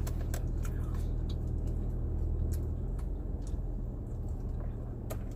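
A steady low hum, with a dozen or so faint scattered clicks and taps over it.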